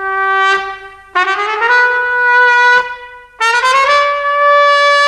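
Trumpet playing long held notes, each higher than the last. A note ends about a second in, then a higher one slides up into pitch and is held. After a short gap a third, still higher note slides up and is held.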